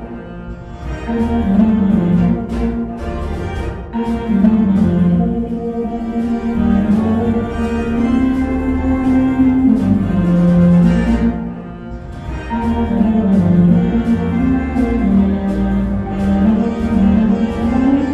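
Orchestral music carried by a low, slow melody, with brief softer dips about half a second in and again past the middle.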